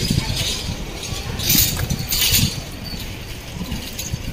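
City street ambience: an uneven low rumble of traffic, with two short hissy rustles about one and a half and two and a quarter seconds in.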